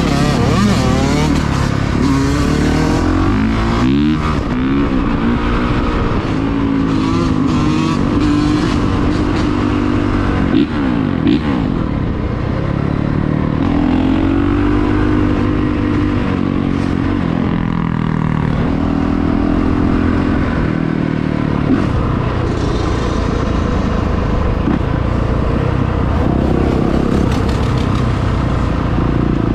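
Motor vehicle engines running and revving continuously, their pitch rising and falling again and again.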